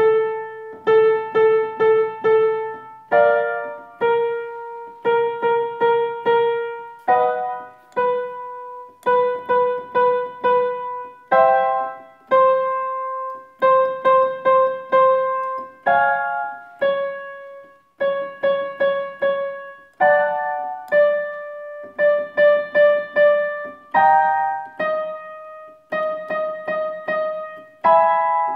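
Piano playing a vocal-exercise accompaniment: a few quick repeated notes, then a chord, the pattern played again a step higher every couple of seconds.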